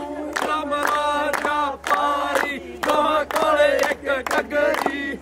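A group of voices chanting or singing together in unison, loudly, over sharp rhythmic beats about three a second.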